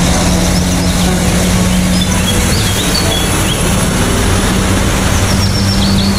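Truck engine running steadily with a constant low hum. Birds chirp in the background, briefly in the middle and again in a quick run near the end.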